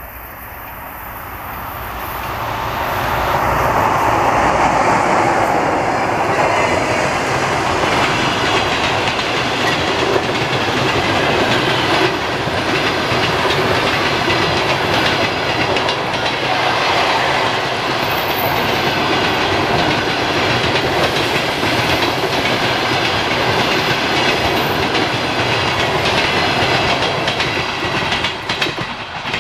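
EP20 electric locomotive passing at speed, then its long rake of passenger coaches rolling by, wheels running on the rails. The sound builds over the first few seconds as the locomotive draws level, then stays loud and steady while the coaches pass.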